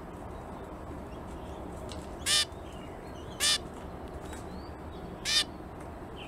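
Adult zebra finch giving three short, loud calls, about one to two seconds apart, over a steady background hiss.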